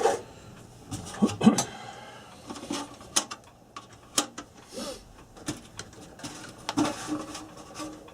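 Irregular small clicks and knocks of hands handling wires and small parts on a workbench.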